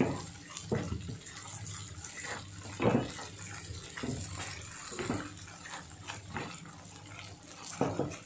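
Pieces of brain frying in hot oil in a kadai, with a steady sizzle, while a wooden spatula stirs them and scrapes the pan in a handful of irregular strokes.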